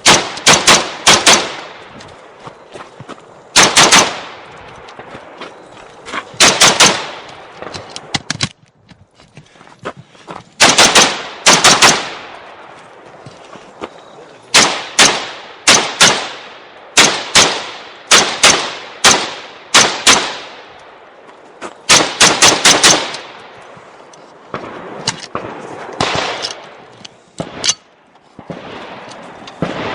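Smith & Wesson M&P15 AR-15 rifle firing in a long run of quick strings of two to five shots, each string a second or two apart. Fainter shots sound in the gaps between strings.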